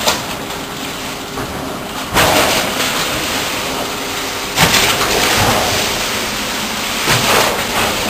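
Storm at sea: steady rushing of wind and water, with louder surges as waves break against the ship about two, four and a half and seven seconds in.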